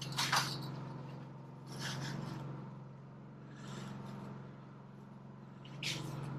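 Aluminum trim stock rubbing and scraping as it is handled on a sheet metal brake, in four short scrapes about two seconds apart, over a steady low hum.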